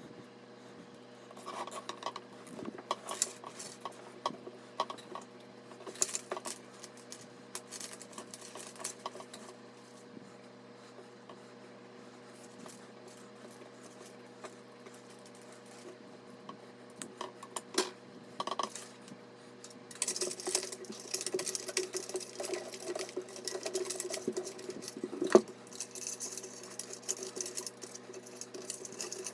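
Hands handling PC components: scattered light clicks and clinks of small parts, then continuous rustling from about two-thirds of the way in, over a faint steady hum.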